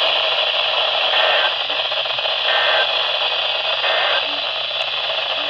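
Weather radio receiver hissing with heavy static over a weak broadcast signal. Three brief faint tones come about a second and a half apart.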